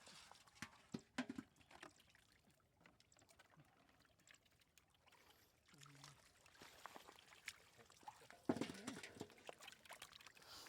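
Faint water trickling and splashing, with scattered small knocks, and a louder splash about eight and a half seconds in.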